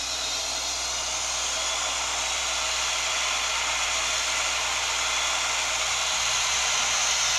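Rapido N scale Turbo Train model's onboard sound decoder playing its gas-turbine engine sound through a small speaker: a steady turbine hiss and whine over a low hum. It grows slowly louder as the train pulls away in reverse.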